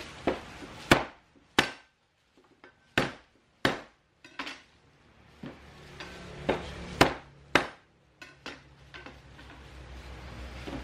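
Sharp knocks on a wooden cutting board, about ten irregular strikes with short quiet gaps, the loudest about a second in and about seven seconds in.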